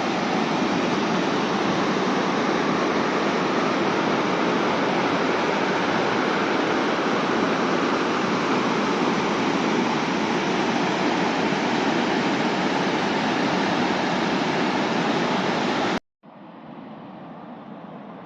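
Waterfall: a steady, loud rush of falling water. About sixteen seconds in it cuts off abruptly and comes back as a quieter, duller rush.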